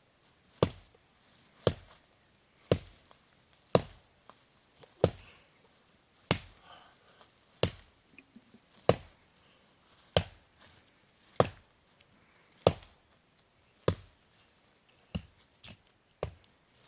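Steady chopping into a tree trunk: a blade strikes the wood about fourteen times, one sharp thunk a little more than once a second.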